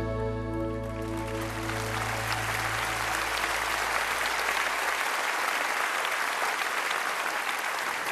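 A live band's final held chord rings out and dies away, its low bass note fading about five seconds in, as the audience breaks into steady applause.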